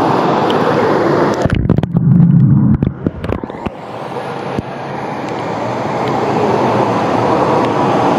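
Fast water rushing and churning through a stainless-steel current channel, a steady loud hiss. About a second and a half in, the sound turns muffled and low, with knocks and bubbling, for about two seconds as the camera dips under the water. The rushing then slowly builds back.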